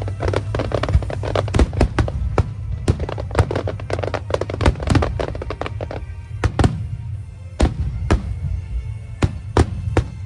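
Fireworks bursting in a dense run of cracks and bangs for about six seconds, then thinning to separate loud bangs, with music playing underneath.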